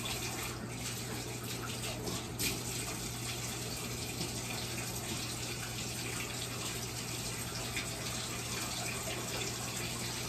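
Water running steadily from a bathtub tap.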